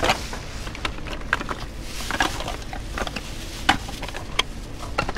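Rummaging through trash inside a dumpster: rustling with scattered sharp clicks and knocks as bags and items are moved about.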